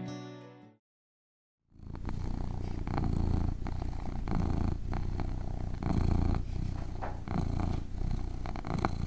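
Cat purring close up, a low steady rumble that swells and eases with each breath, starting about two seconds in. Before it, the last notes of soft guitar music fade out, followed by a second of silence.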